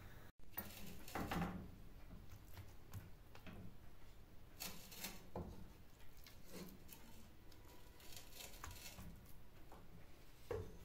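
Faint handling sounds of curry being served onto a roti on a plate: scattered soft taps and scrapes, with a louder rustle about a second in.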